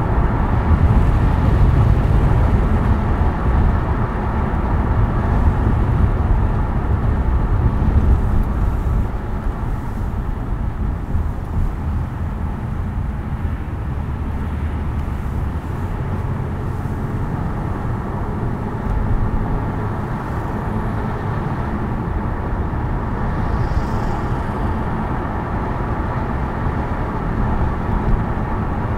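Steady road noise of a moving car: a low, even rumble of tyres and engine, a little louder for the first nine seconds or so, then constant.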